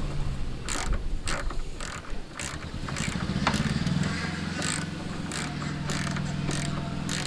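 Ratchet wrench clicking in short bursts, about two a second, as it backs off the nuts on the door hinge pins. A low steady hum runs underneath.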